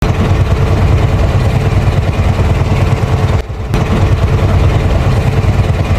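Engine running steadily with a deep rumble and a faint hum above it, briefly dropping away about three and a half seconds in.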